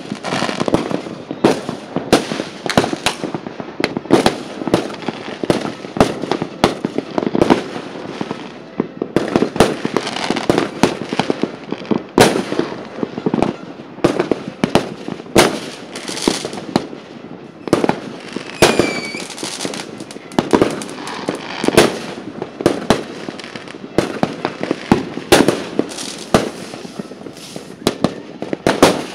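Fireworks going off without a break: many sharp, irregular bangs, overlapping one another. A brief falling whistle comes about two-thirds of the way through.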